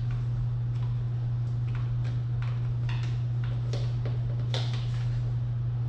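Scattered sharp clicks and scrapes, about eight over several seconds, from an old plastic trim clip being worked loose from an engine's intake manifold. A steady low hum runs underneath throughout.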